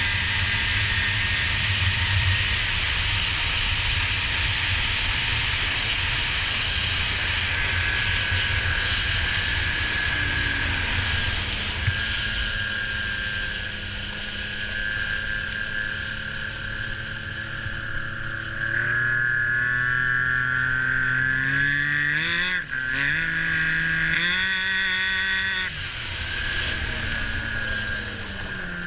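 Snowmobile engine running at speed with a heavy wind rush on the rider's camera. About a third of the way through, the engine note drops as the sled slows. Later the pitch rises and falls several times with changes of throttle, then eases off lower near the end.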